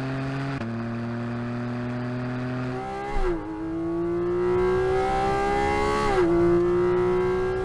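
Porsche 718 Cayman GT4 RS's naturally aspirated flat-six engine pulling hard under acceleration, its pitch climbing steadily. The pitch drops sharply at two upshifts, about three seconds in and again about six seconds in.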